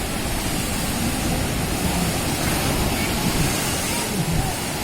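Sea surf breaking and washing onto a beach: a steady rushing noise with no break.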